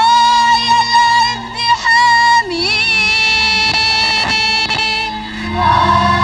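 A girl soloist singing an Arabic song with music accompaniment. She slides up into a long held note, then holds a second long note with a waver in it.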